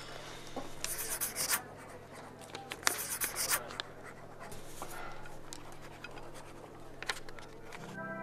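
Pen scratching across paper as a signature is written, in two short scratchy spells about a second in and about three seconds in, with a few light ticks of the pen.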